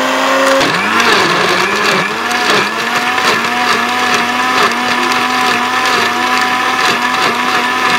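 Electric mixer-grinder blending watermelon chunks into juice: a loud, steady motor whine whose pitch dips briefly about twice a second as it works through the fruit.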